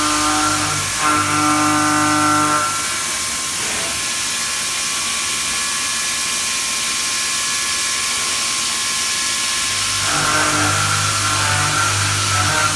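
MAXXTRON B17 CNC machine tool machining, a steady hiss under a set of steady humming tones from its drives. The hum drops away after about three seconds, leaving the hiss and a faint whine, and comes back near the end.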